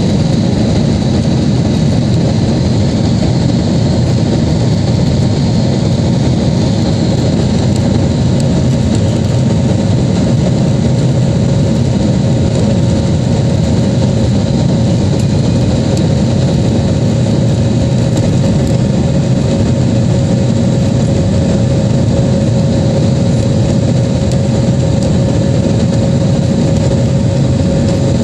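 Engine noise inside the cabin of an Airbus A320 at takeoff thrust during the initial climb. It is a loud, steady, deep rumble with a steady whining tone above it.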